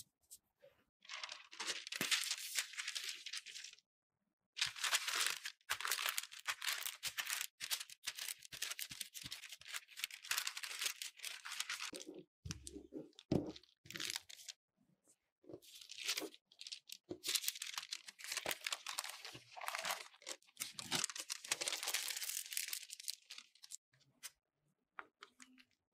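Parchment sheet crinkling and rustling under a rolling pin as cookie dough is rolled flat beneath it, in repeated strokes with short pauses between them. A couple of dull knocks come about halfway through.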